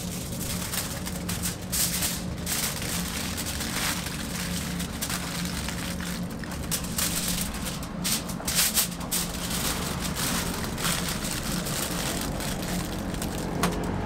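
Aluminium foil crinkling and rustling in irregular bursts as it is folded by hand around a whole roast chicken. A steady low hum sits underneath.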